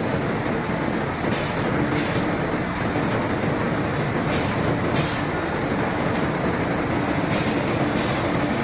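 Spindle veneer peeling lathe running with a steady mechanical din, broken by short bursts of hiss that come in pairs, about two-thirds of a second apart, roughly every three seconds.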